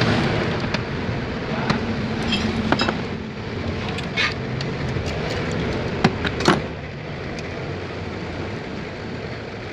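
Scattered metallic clicks and clinks of a wrench working the 10 mm bolts that hold an engine's ignition coils, over a steady background rumble.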